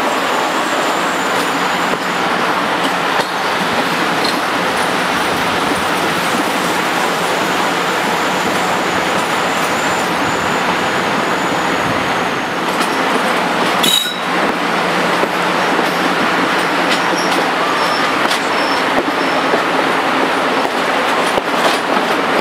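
English Electric Class 55 Deltic locomotive hauling a train on one of its two Napier Deltic engines, heard from just behind it: a steady mix of engine and wheels on rail, with faint high squeals here and there.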